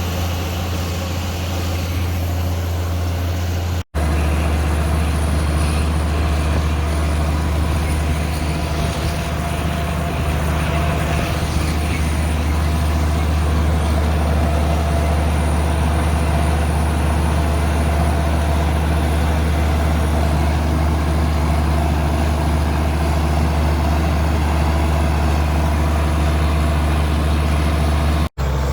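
Heavy farm-machine engine running steadily at a constant speed, a low drone with no change in pitch. It drops out sharply twice for an instant, about four seconds in and again near the end.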